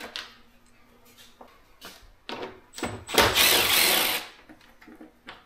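A cordless power driver runs for about a second, backing out a 10 mm bolt, after a few small clicks and knocks of handling.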